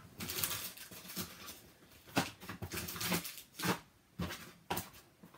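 Hands rummaging through packaging in a cardboard box: a run of short, irregular rustles and crinkles.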